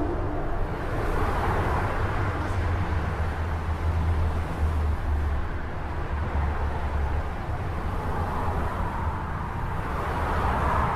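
Steady outdoor ambient noise: a low rumble with a hiss over it, swelling slightly near the end.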